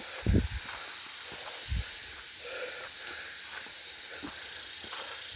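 Steady high-pitched insect drone, with a couple of low thumps in the first two seconds.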